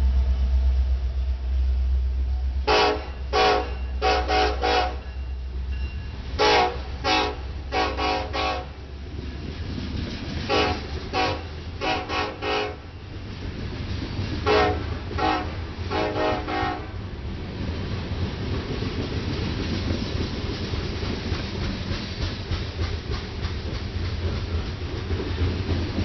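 Freight train with a Ferromex diesel-electric locomotive passing close. A deep engine rumble is followed by a horn show: the locomotive's air horn sounds many short, rapid blasts in about five bursts. Then comes the steady rumble and clickety-clack of loaded hopper cars rolling past.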